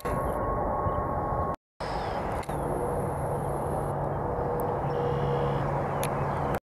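Steady jet engine noise from aircraft moving around the airport, an even low rumble with a faint hum. It drops out abruptly for a moment about a second and a half in and again near the end.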